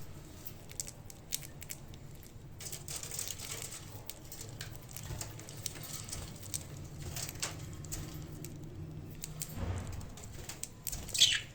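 Budgies pecking and chewing green sprouts, a scatter of small irregular clicks and crunches over a low steady hum. Near the end a budgie gives one short, loud chirp that falls in pitch.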